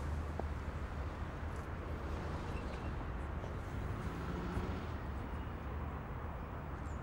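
Street ambience: a steady low rumble of traffic with faint background noise.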